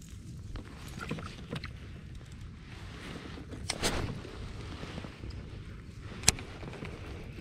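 Kayak on the water with wind on the microphone: a steady low rumble, a few light clicks, a brief swell of noise about four seconds in, and one sharp knock against the kayak about six seconds in.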